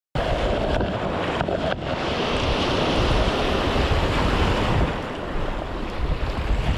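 Sea surf washing over a rocky shore shelf, with wind rumbling on the microphone. The sound cuts in abruptly at the start and stays steady, with a few faint clicks in the first two seconds.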